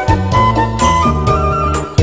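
Background music: a melody of held notes over a sustained bass line.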